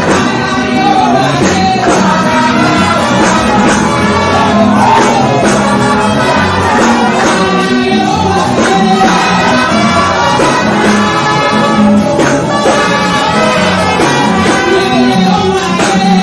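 Gospel singing into microphones over a live band with a steady beat, amplified and loud.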